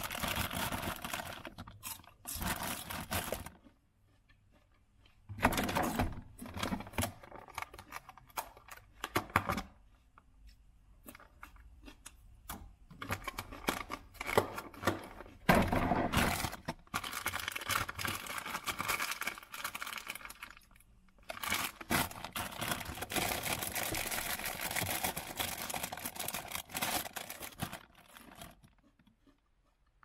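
Plastic bags and wrappers crinkling and rustling in irregular bursts as food is handled and unwrapped, with short quiet pauses between.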